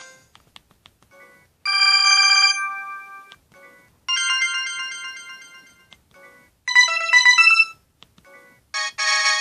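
Preloaded ringtones playing through a Samsung SGH-E250 phone's speaker: four short electronic melodies, one after another, each cut off after a second or two. Brief soft beeps sound in the gaps between them.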